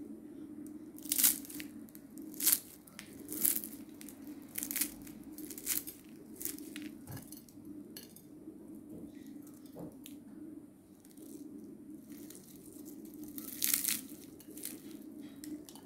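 Crisp baked puff-pastry cream-roll shells crackling and crunching as fingers squeeze and break them open, the flaky layers giving a series of sharp crackles, most in the first six seconds and again near the end. A steady low hum runs underneath.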